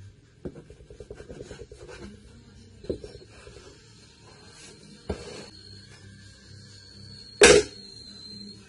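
Kitchen knife sawing through the crusts of white bread slices on a plastic cutting board: quick rasping strokes over the first two seconds, then a few single knocks on the board, with one loud sharp knock near the end.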